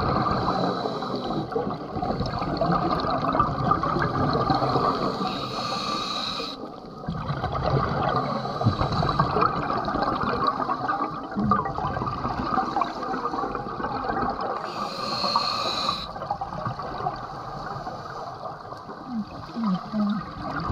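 Scuba diver's breathing heard underwater: the bubbling gurgle of exhaled air from the regulator, with a hiss of inhaling twice.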